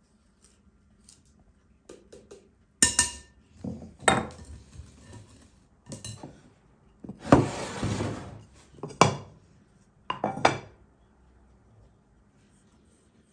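A stainless fine-mesh sieve and a metal scoop knocking and clinking against a glass mixing bowl: about half a dozen separate clinks, with a short scraping rustle about halfway through.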